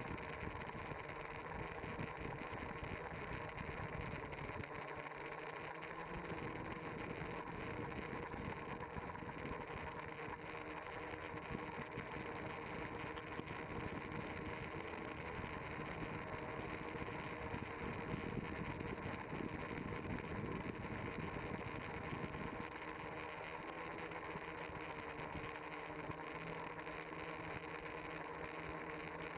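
Quadcopter's electric motors and propellers buzzing steadily in flight, heard through the onboard camera, with the pitch of the lower hum shifting a little now and then.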